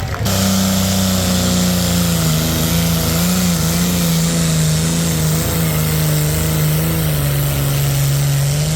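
Tractor engine running at a steady speed, its pitch wavering only slightly.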